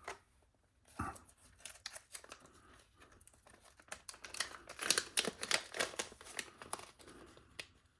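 Plastic packaging of an RC car bearing kit crinkling as it is handled, with many small irregular clicks and taps from the parts, busiest in the second half.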